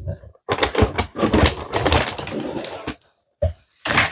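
Cardboard shipping box and its packing being handled and shifted, a dense rustling and scraping that runs for about two and a half seconds, stops briefly about three seconds in, then starts again near the end.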